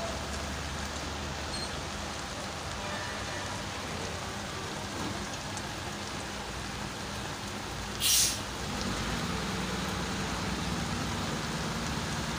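Heavy rain falling steadily, a constant hiss of rain on the flooded ground. About eight seconds in there is a short, loud hiss, and a low steady hum comes in just after it.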